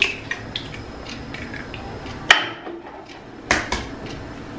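Eggs being cracked on the rim of a plastic blender jar: a sharp knock about two seconds in, then two quick taps about a second later, over a faint rustle of handling.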